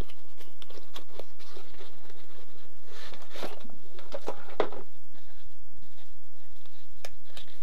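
Hands opening a small knife box and taking the knife out of its packaging: scattered clicks, scrapes and rustles, busiest around the middle.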